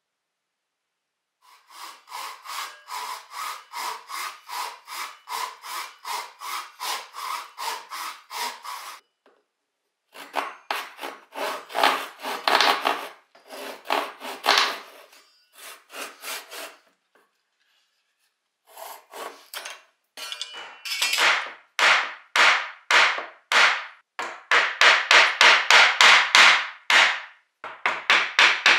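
Fine-toothed hand saw cutting into a block of pine, with quick, even back-and-forth strokes at about three a second. The strokes come in several runs separated by short pauses, and the last run is the loudest.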